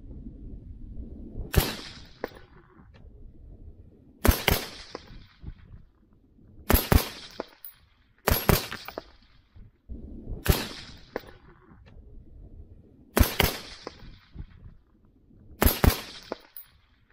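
Suppressed AR-15 carbine with an 11.5-inch barrel and an ID UA .223 suppressor, firing deliberate single shots: seven shots about two to two and a half seconds apart, each with a short echoing tail.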